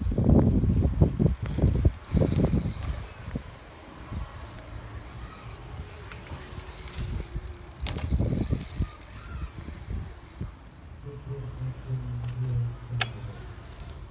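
BMX bike tyres rolling and carving over a concrete skate bowl, heard as an uneven low rumble that swells and fades, with a few sharp clicks or knocks, the clearest about eight and thirteen seconds in.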